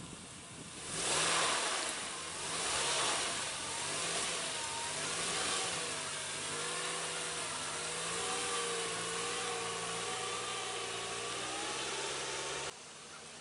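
Vehicle engine revving while its wheels spin off road. The loudest rushes of noise come about a second in and again around three seconds. After that the engine runs on at a wavering pitch until the sound cuts off suddenly near the end.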